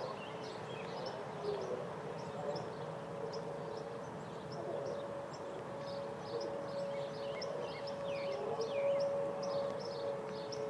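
Outdoor emergency warning siren sounding its monthly test: a steady two-note wail that grows louder about halfway through. A Malamute–Great Dane mix howls along at times, and small birds chirp throughout.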